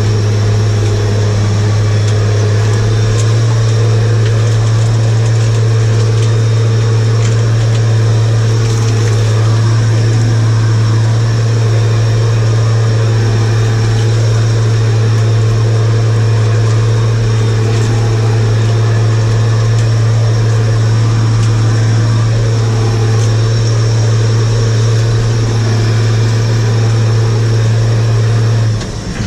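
An engine running steadily at one constant speed, with a brief dip just before the end.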